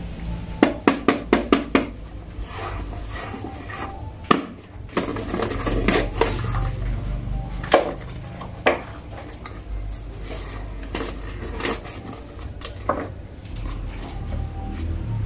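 Six quick sharp taps of a small tool against a paper sheet, then crinkling and tearing paper with scattered knocks as a hand breaks through the sheet.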